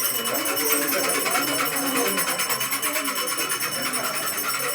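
Small metal bells ringing continuously with a steady high tone, over a crowd of voices talking and singing.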